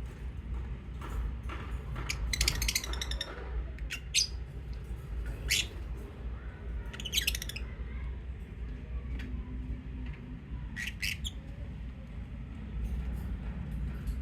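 Pet lovebirds calling in scattered sharp chirps and squawks. There is a quick run of chirps about two seconds in and another around seven seconds, with single calls between, over a steady low hum.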